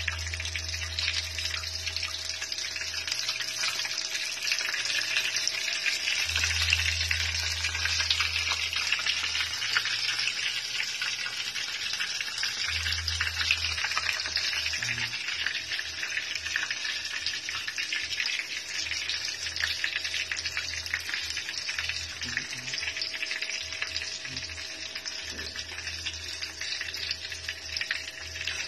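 Breaded eggplant and tuna fritters sizzling and crackling steadily in hot oil in a small frying pan.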